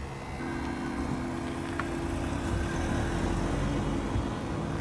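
Steady low vehicle hum with a few held tones that drop out and resume about half a second in, and a single light click about two seconds in.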